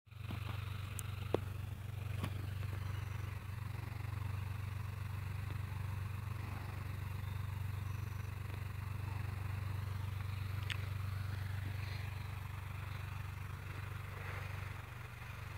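Light aircraft's piston engine running steadily at a distance, a constant low hum. Two sharp clicks come about one and two seconds in.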